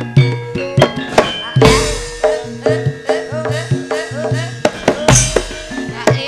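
Javanese gamelan music with hand-drum strokes, probably the kendhang, striking about twice a second over the steady ringing tones of the ensemble.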